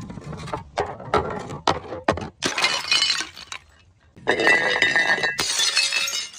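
Glass bottles breaking: a run of sharp clinks and cracks, then two longer spells of shattering glass, about two and a half and four seconds in. The second spell is the loudest and has ringing glass tones in it.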